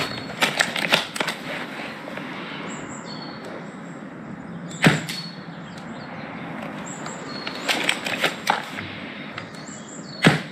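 Ares Striker 01 spring bolt-action airsoft sniper rifle firing through a homemade silencer packed with floral foam. Three sharp shots come about five seconds apart, and between them the bolt is worked to reload in a quick run of clicks.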